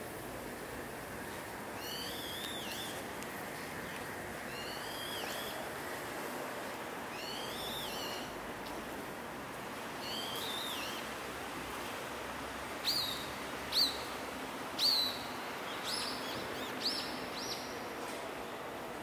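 A bird calling over and over: a rising-then-falling call repeated about every two and a half seconds, then, from about two-thirds of the way through, shorter sharp calls about once a second. A steady hiss of background noise runs underneath.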